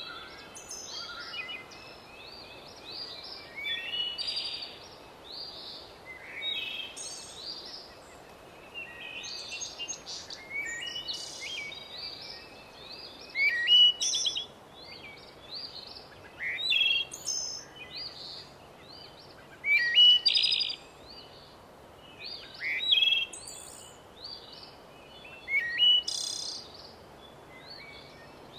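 Birds chirping and singing, many short overlapping calls and trills throughout, with a few louder bursts of song, over a faint steady background hiss.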